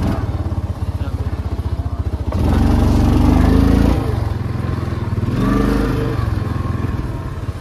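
ATV (quad bike) engine running with a rapid low pulse, its throttle opened twice, about two seconds in and again around five and a half seconds, the engine note rising each time.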